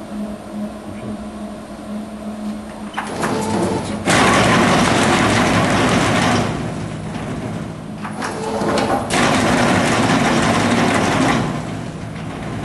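Pomeke pomegranate separator machine running through its cycle: a low steady hum, then a rattle about three seconds in and two loud hissing rushes, each lasting about two and a half seconds, about five seconds apart.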